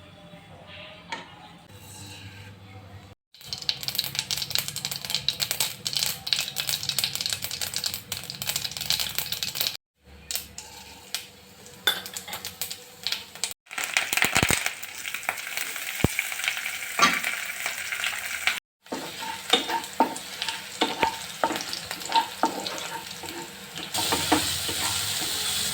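Hot oil sizzling and crackling in a small pan while a spoon stirs and scrapes against the metal, as a tempering (tadka) for dal is cooked. The sound breaks off abruptly several times, and a steadier, louder sizzle comes in near the end.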